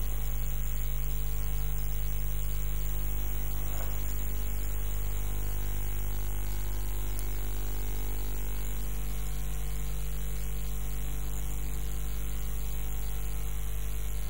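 Steady low electrical hum with an even hiss, unchanging throughout.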